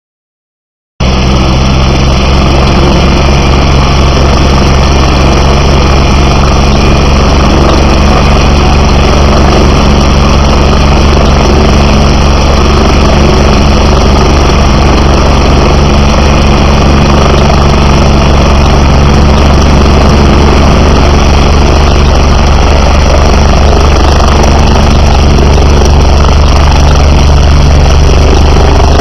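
Helicopter running close to the microphone: a loud, steady rotor and turbine sound with a deep, rapid rotor beat. It starts abruptly about a second in and holds steady throughout.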